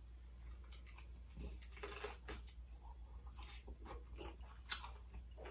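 A person chewing crispy Southern fried chicken: faint, short crunches and clicks at irregular intervals.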